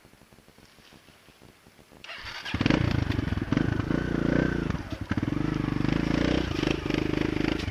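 Kawasaki KLX trail bike's single-cylinder engine starting about two seconds in, then revving loudly up and down as the bike is worked through a deep rut.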